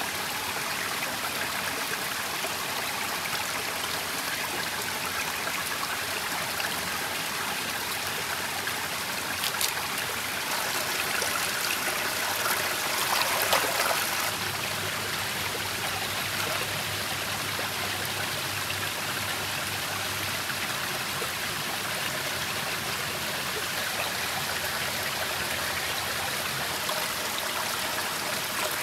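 A small stream running steadily over rocks. From about ten seconds in, louder splashing as the peeled root pieces are rinsed by hand in the water, stopping suddenly at about fourteen seconds.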